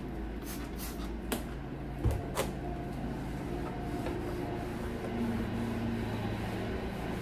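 Light knocks and clicks from kitchen cabinet doors being handled and wiped down with a cloth: several in the first two and a half seconds, the loudest a dull thump about two seconds in, over a steady low hum.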